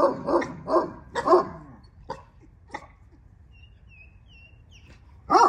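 Bully-breed dog barking in quick runs of about three barks a second, then two single barks. After a short lull, another run of barks starts near the end.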